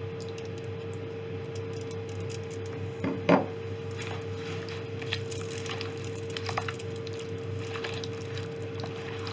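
A hand squishing raw chicken pieces through a wet yogurt marinade in a plastic bowl: soft, irregular squelches, with one brief louder noise about three seconds in. A steady hum runs underneath.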